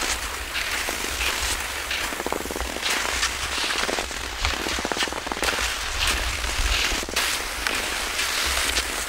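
Cross-country skis gliding and scraping over frozen crust snow: a steady crackling hiss full of small clicks, with wind rumbling on the microphone.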